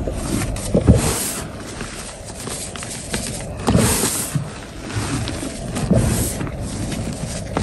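Fingers pressing, raking and squeezing into a deep bed of fine powder, giving soft crunches. They swell in uneven handfuls, strongest about a second in, around four seconds and around six seconds.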